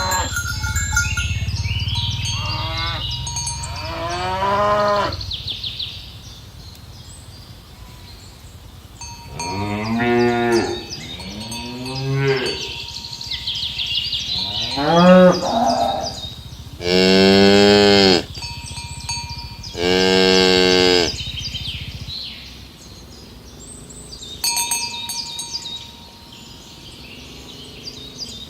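Several cows mooing, about six calls in a row with falling pitch. The two longest and loudest come in the second half. Near the end a bell clinks repeatedly.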